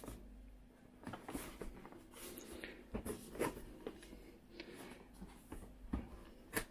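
Hands handling and turning over a cardboard box: faint scattered rubbing, scraping and tapping of cardboard, with a few sharper knocks.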